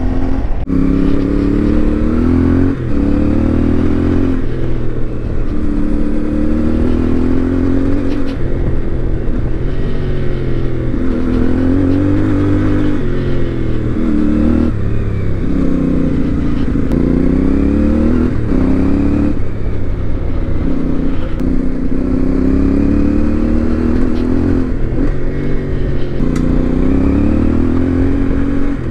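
CFMoto 450MT's 449 cc parallel-twin engine under way, revving up and down over and over, its pitch rising and falling every two to three seconds with the throttle.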